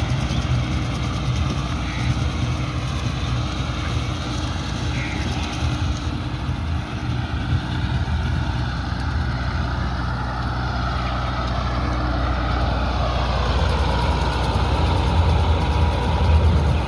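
Massey Ferguson 385 tractor's diesel engine running under load as it pulls a toka straw chopper through rice stubble. It grows louder over the last few seconds as the tractor comes close.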